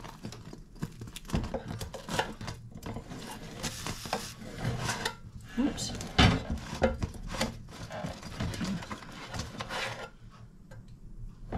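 Silicone spatula scraping and tapping against a non-stick air fryer basket and its grate while a baked flatbread is pried loose and lifted. The scrapes and knocks come irregularly, with the loudest knock just after halfway.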